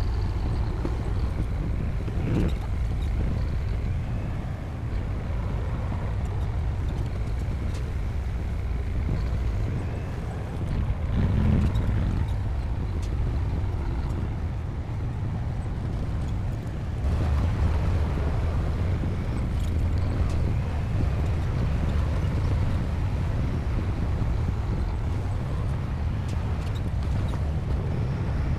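Bulldozer diesel engine running steadily at work, a low rumble that grows louder about two-thirds of the way through, with a couple of brief clanks.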